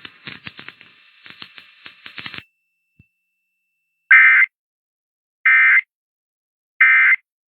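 Emergency Alert System end-of-message signal: three short bursts of warbling SAME data tones, each about a third of a second long and a little over a second apart, marking the end of the test. Faint crackle comes before them in the first couple of seconds.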